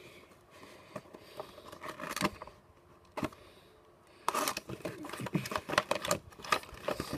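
Fingers handling a cardboard toy box: scattered taps and scrapes on the cardboard, then from about four seconds in a busier run of scraping and rustling as the box's end flap is pried open.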